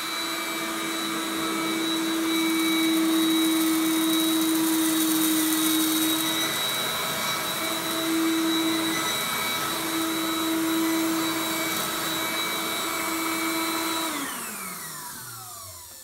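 Motor of an experimental closed-loop vacuum cleaner running at full speed with a steady whine. Near the end it is switched off, and its pitch falls as it winds down.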